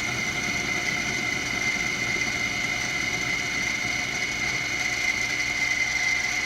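Benchtop mini mill running, its spindle motor giving a steady high-pitched whine, while a tool bit faces off the end of a workpiece spinning in the spindle.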